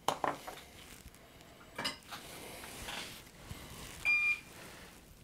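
Small metal tools clinking and clicking on the workbench, then about four seconds in a single short high electronic beep from the soldering station as the iron is taken up to tin the pads with solder.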